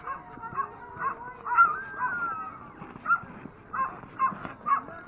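Harnessed sled dogs barking and yelping in a rapid string of short calls, with a longer drawn-out whine about a second and a half in: the excited noise of a team held back at the start line, eager to run.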